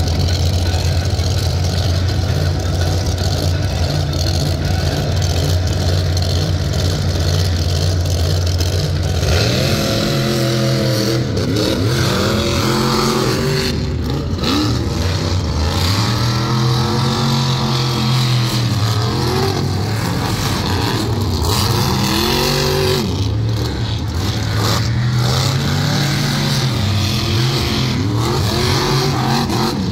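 Monster truck engines idling with a deep, steady sound, then from about nine seconds in a truck's engine revs up and down again and again as it races.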